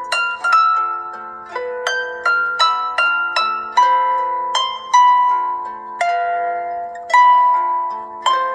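Samsung Galaxy S4 preloaded ringtone playing: a melody of pitched notes that strike and fade, about two or three a second, over a low bass note that returns every couple of seconds.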